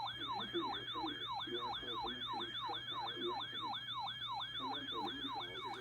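Electronic siren in a fast yelp: a pitch that jumps up and slides down about three to four times a second, steady and unbroken.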